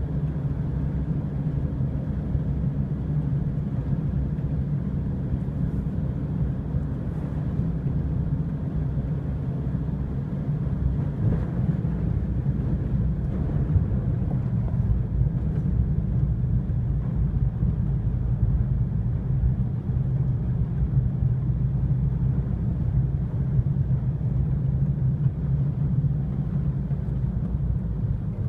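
Car driving, heard from inside the cabin: a steady low rumble of engine and tyres on the road.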